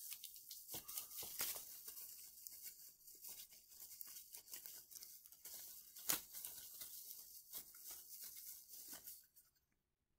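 Faint crinkling and crackling of clear plastic bubble wrap being pulled and peeled off a small item by hand, in irregular crackles that stop about a second before the end.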